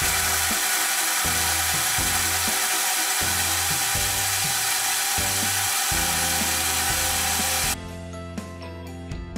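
Kajafa personal blender motor running steadily as it blends mango pieces, milk and ice into a milkshake, then cutting off suddenly near the end.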